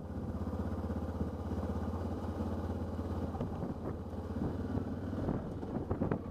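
Motorcycle engine running steadily at road speed, a low, evenly pulsing hum, with a few irregular knocks near the end.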